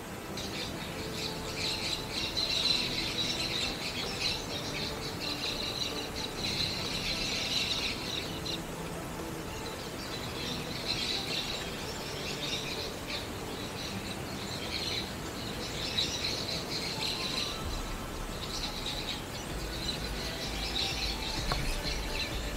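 High-pitched animal chirping in repeated bursts of a second or two, over quiet outdoor ambience.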